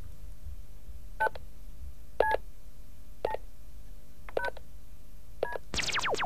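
Touch-tone telephone keypad beeps as a number is dialled: five short two-tone beeps about a second apart, with a brief falling sweep near the end.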